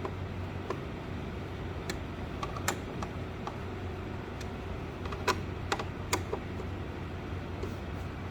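Scattered light clicks and taps of a screwdriver turning screws into a plastic frame, with a few sharper clicks around the middle, over a steady low hum.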